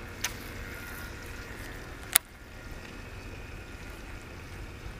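Steady low water noise around the boat, with a single sharp click about two seconds in from the baitcasting reel being handled, and a fainter click just after the start.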